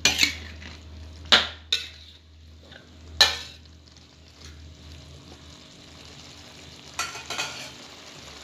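A spatula scraping and stirring fish pieces, tomato and shallot around a wok in a few quick strokes, six in all, in clusters. Steady sizzling from the frying food runs underneath.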